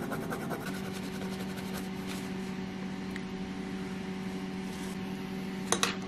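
A small brush scrubbing solvent over a circuit board to clean off solder flux, heard as fast, faint scratchy strokes through the first couple of seconds. A steady electrical hum sets in just under a second in, and a few sharp clicks come near the end.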